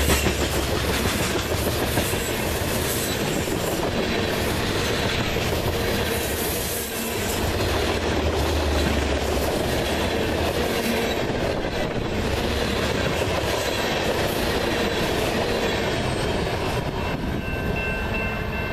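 Covered hopper cars of a Norfolk Southern grain train rolling past at close range, wheels and trucks running steadily over the rails. Near the end the last car goes by and thin, high ringing tones are left.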